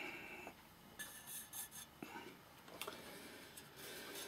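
Faint rubbing and scraping with a few light clicks: hands handling the amplifier's removed front panel.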